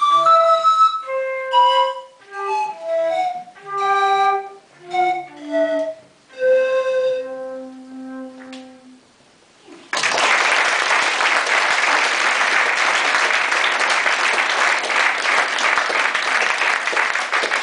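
Flute playing a slow melody in separate notes, closing on a long held low note. About ten seconds in, applause breaks out suddenly and keeps going.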